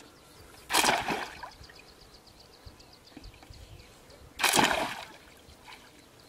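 Two splashes in shallow water, about a second in and again about four and a half seconds in, as a wading fisherman works a pole through the water.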